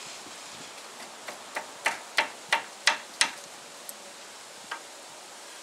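Ratchet wrench with a T55 Torx bit clicking on a brake caliper bolt. It gives a run of about eight sharp clicks, roughly three a second, then two faint ones.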